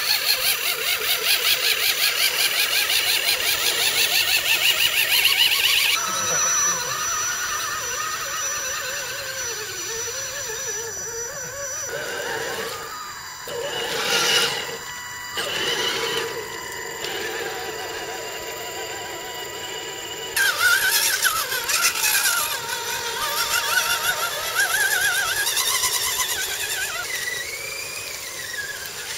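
Electric motors and gear drivetrains of radio-controlled scale trucks whining as they crawl through mud and water. The pitch rises and falls with the throttle, and the sound changes abruptly a few times.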